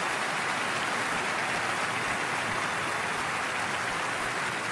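A large audience applauding, a steady even clapping.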